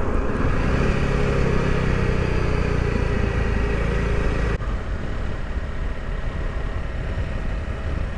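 Honda CRF300 Rally's single-cylinder engine running as the motorcycle is ridden, with wind noise on the microphone. About halfway through, the sound changes abruptly to a quieter, more even engine and wind drone on the open road.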